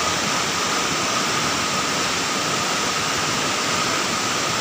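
Rushing brown floodwater of a swollen river, a steady, loud rush of torrent.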